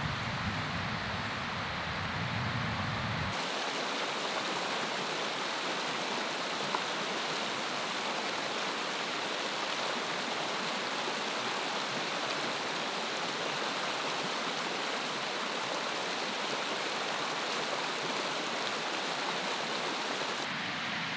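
Shallow mountain stream rushing over rocks, a steady hiss of running water. For the first three seconds or so there is only a low rumble of wind, which gives way abruptly to the water.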